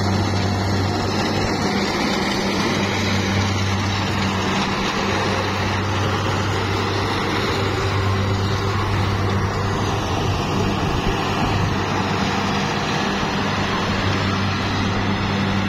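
An engine running steadily, a constant low hum over a broad even rush of noise.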